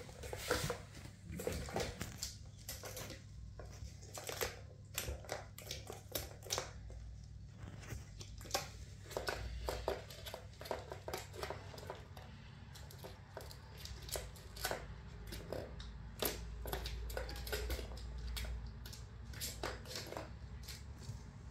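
Kittens batting at a plastic ball-track tower toy: irregular clicks and clatters of the balls knocking around in the plastic tracks and paws tapping the plastic.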